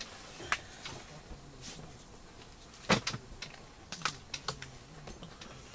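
Scattered light clicks and taps, with one sharper knock about three seconds in, from hands handling ice-fishing gear at a hole in the ice.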